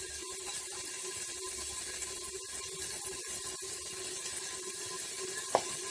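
Onion-and-spice masala frying gently in oil in a brass pot: a steady low sizzle with a faint hum, and one sharp clink of the spoon near the end.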